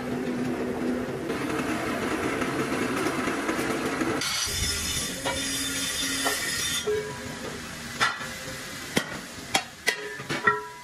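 Workshop noise: a steady machine hum with hiss, which changes about four seconds in to a higher, brighter hiss, followed by several sharp metallic knocks and clinks near the end.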